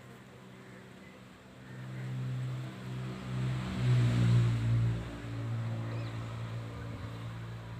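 A motor vehicle's engine humming as it draws near and passes, loudest about four seconds in, then running on steadily at a lower level.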